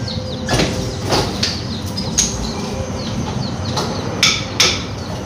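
Irregular sharp knocks of a hand tool striking a concrete column, about seven blows, the loudest two near the end.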